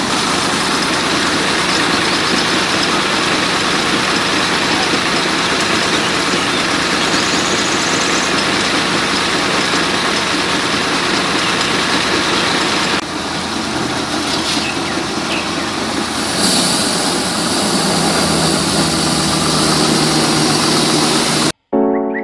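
Miniature grain mill running steadily as grain is fed through it, a dense mechanical running noise. The sound shifts in character twice in the second half and cuts off suddenly just before the end.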